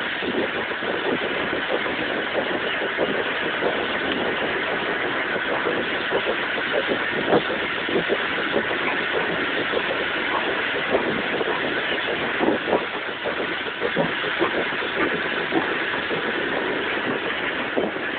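Small steam locomotive running, heard from its footplate: a steady rush of steam and running noise with frequent irregular knocks and clatters.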